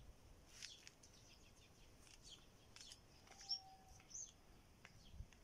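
Faint, scattered high bird chirps, with a few light clicks; otherwise near silence.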